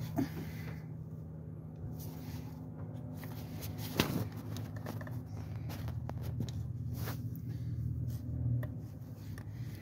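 Hands working the plastic fuel-injector return line fitting back onto the injector over its new O-rings: light rubbing and handling noise with a few small clicks, the sharpest about four seconds in, over a steady low hum.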